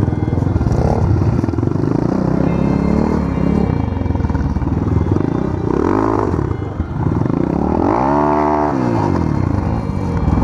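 Off-road vehicle engine running hard while riding, its pitch rising and falling as it revs up and back down about six seconds in and again around eight to nine seconds.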